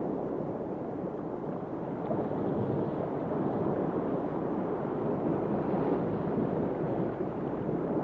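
Steady, muffled rushing of water with no distinct events, an underwater ambience; it swells slightly about two seconds in.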